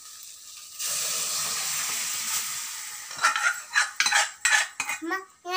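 Hot oil and sautéed onion and tomato sizzling sharply as cooked, mashed moong dal is poured into the kadai. The sizzle starts suddenly about a second in and dies away, followed by clinks and scrapes of a spoon and the aluminium pot against the kadai as the dal is scraped out.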